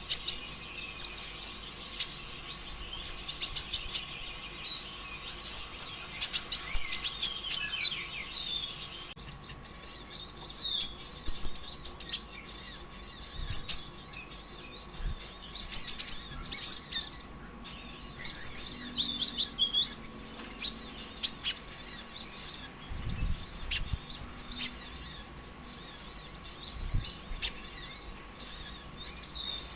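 A kolibri ninja (konin) sunbird singing fast, high twittering bursts of chirps, trills and sharp ticks, broken by short lulls. A faint steady whine runs underneath.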